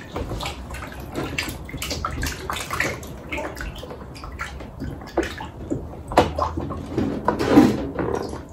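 Hands sloshing and rubbing pieces of cut catfish in a plastic bowl of water, with irregular small splashes and squelches as the fish is washed.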